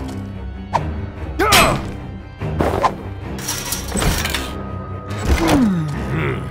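Background music under added sound effects of a chained, padlocked door being forced open: a few knocks and thuds, a crash about one and a half seconds in, and a noisy rush of metal around four seconds in.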